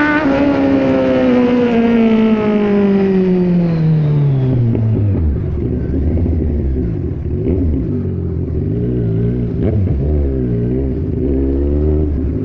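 Kawasaki Z1000 inline-four engine falling steadily in pitch for about five seconds as the throttle is rolled off and the motorcycle slows. It then runs at low, uneven revs with a couple of small blips.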